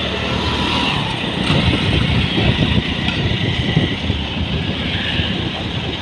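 Motorcycle ridden at about 30 km/h, heard from on the bike: its engine runs steadily under continuous road and wind noise.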